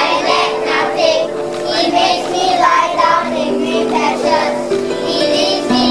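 A group of children singing together over recorded backing music with held notes that change pitch in steps.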